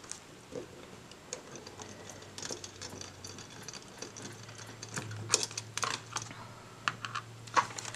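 Small metallic clicks and ticks from unscrewing the little screw that holds a six-ring binder mechanism, with a cluster of louder clicks about five to six seconds in.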